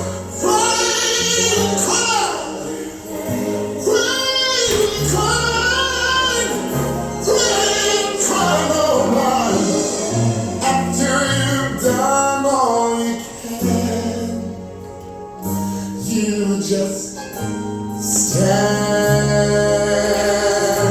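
Gospel singing with instrumental accompaniment: sustained, wordless-sounding vocal runs over steady held bass notes.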